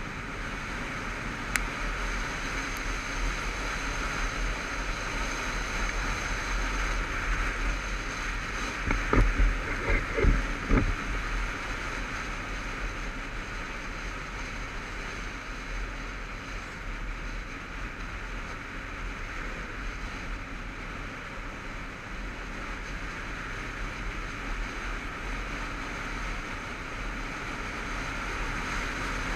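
Wind rushing over a helmet-mounted camera on a moving motorcycle, a steady roar with road and engine rumble underneath. About nine to eleven seconds in, a few loud wind buffets hit the microphone.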